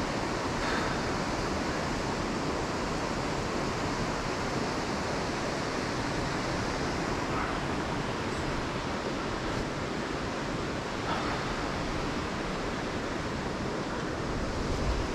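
Whitewater of the Youghiogheny River's Dartmouth Rapids rushing in a steady, even roar.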